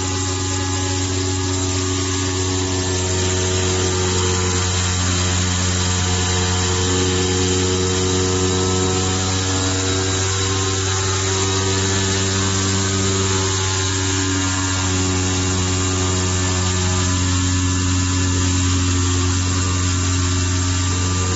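Digital flatbed cutting machine running while it cuts tanged gasket sheet: a steady, loud low hum with overtones over a hiss. Near the very end the pitch starts to fall as the machine winds down.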